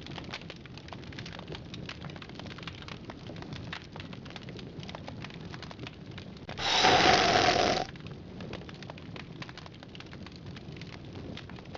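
Bonfire crackling and popping steadily. Partway through, a sudden loud, harsh burst of noise lasts about a second and cuts off abruptly.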